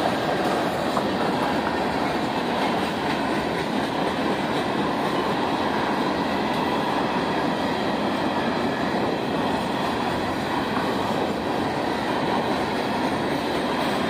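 Train cars rolling past on the rails, a steady, unbroken noise of wheels on track.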